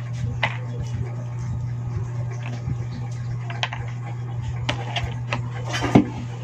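Balatong bean pods being split and shelled by hand, with scattered small snaps and clicks as pods break open and seeds drop onto a tray, over a steady low hum. A louder clatter comes about six seconds in.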